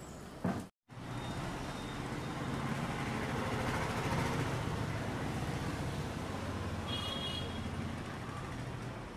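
A road vehicle passing below, its low engine and tyre rumble swelling to a peak about four seconds in and then slowly fading. A short high-pitched tone sounds about seven seconds in.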